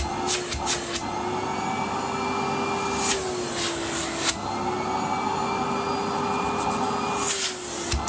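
A 1993 Numatic Henry HVR200 cylinder vacuum cleaner running with a steady motor whine and airflow noise. Its pitch dips slightly a few times as the hose and wand are handled, with short clatters from the hose and wand about a third of a second in, around three to four seconds in, and near the end.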